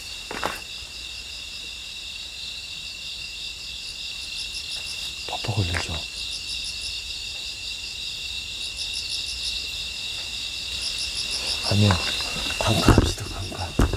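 Crickets and other night insects chirping in a steady high chorus, with a faster pulsing trill above it that comes and goes every second or two.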